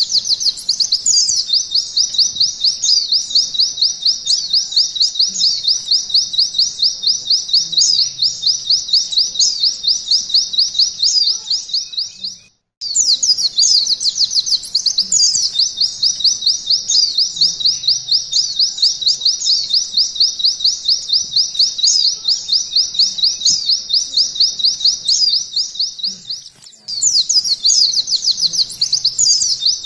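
A white-eye (pleci) sings a long, rapid, high chattering trill in the canary 'nembak' style. Its quick notes run on almost without pause, break off briefly about 12 seconds in, and start up again.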